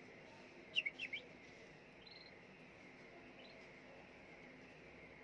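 Canaries chirping: three quick, high, downward-sliding chirps about a second in, then a few faint short chirps.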